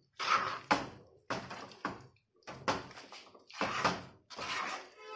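A spatula scraping and stirring a thick, sticky laddu mixture of melted jaggery, ghee, turmeric and roasted flour around a kadhai, in separate strokes a little more than one a second.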